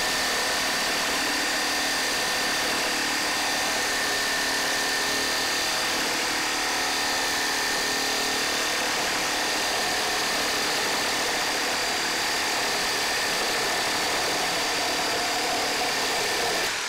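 Makita 18V X2 LXT (36V) brushless cordless reciprocating saw cutting through pressure-treated 4x6 lumber in one continuous cut, the blade sawing at an even pace with a steady high whine over the cutting noise.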